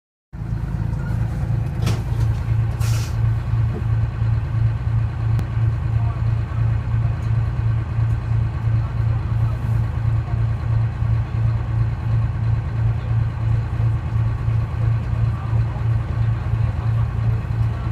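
Detroit Diesel 6V71 two-stroke V6 diesel of a 1970-71 GMC New Look bus idling, a steady low throb that pulses evenly. A click about two seconds in and a short hiss about a second later.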